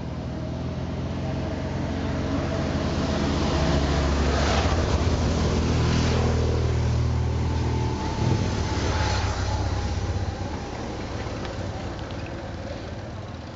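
A motor vehicle's engine passing close by on the road: its hum grows louder over several seconds, changes pitch about two-thirds of the way through, then fades away.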